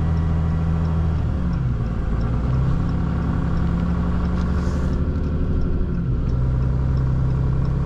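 Truck engine running under load as it crawls up an icy hill in four-wheel drive, its note dipping and picking back up about a second and a half in and shifting again near six seconds.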